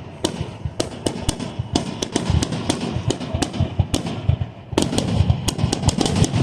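Fireworks grand finale fired in rapid succession: a dense run of sharp bangs and crackles over a continuous low rumble. It thins briefly a little past four seconds in, then comes back denser.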